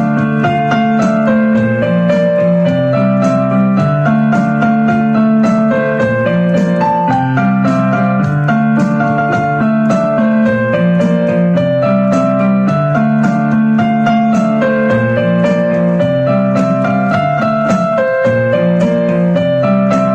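Background music on a keyboard instrument with a steady, repeating melody.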